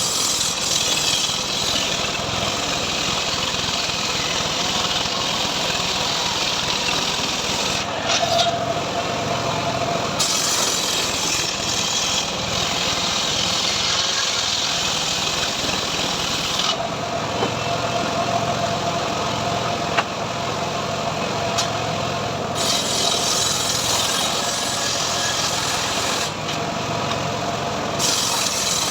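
Engine-driven homemade sawmill running steadily while its blade cuts through teak, with a harsh hiss during each stretch of cutting. The cutting sound drops away briefly around 8 seconds in, again for several seconds in the middle, and once more near the end, while the engine keeps running.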